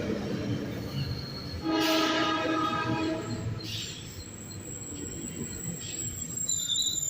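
Metrolink commuter train sounding one horn blast of about a second and a half, a little under two seconds in, over the rumble of the train running on the rails. High-pitched wheel squeal comes in later and grows near the end.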